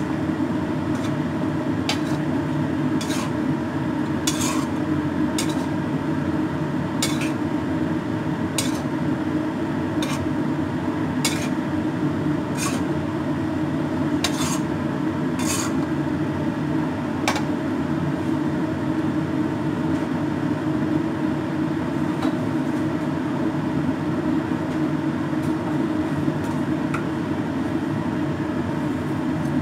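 Metal spatula clanking and scraping against a steel wok as rice vermicelli is stir-fried, a clank every second or so, stopping after about seventeen seconds, over a steady low rushing noise.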